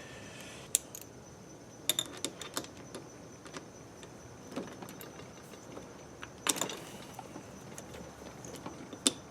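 Scattered metal clicks and clinks of hand tools working on the small bolts of a Honda XR80R's cam sprocket as they are loosened to free the timing chain.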